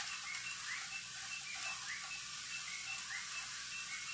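Eggplant, tomato and onion frying in a pan with a steady, quiet sizzle. A faint high chirp repeats about three times a second over it.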